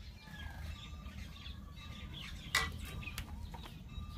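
Birds calling and chirping in short notes in the background, with one sharp clink of steel tableware about two and a half seconds in and a few fainter clicks just after.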